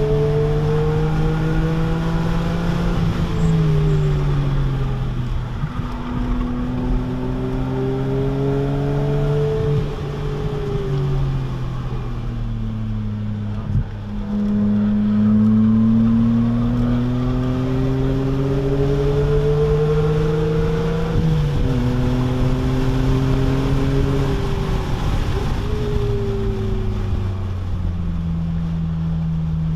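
2006 BMW Z4 M's S54 inline-six with a muffler delete, heard from inside the cabin while lapping a track. The revs climb and fall again and again, with sudden steps in pitch at the gear changes and a low dip partway through before the engine pulls back up.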